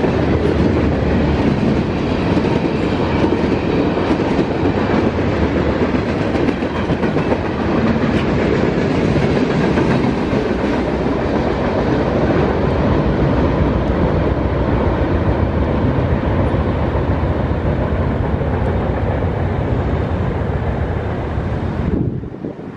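Freight train of tank cars rolling past, a steady rumble with wheels clattering over the rails; the noise drops off sharply near the end.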